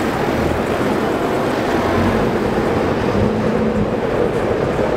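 Alfa Romeo 4C's 1750 turbocharged four-cylinder engine running steadily at low revs as the car creeps along at walking pace.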